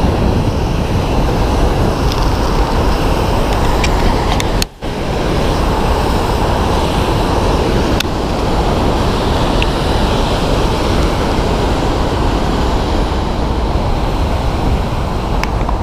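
Loud, steady rush of a waterfall's falling water and spray. The noise breaks off for a moment about five seconds in.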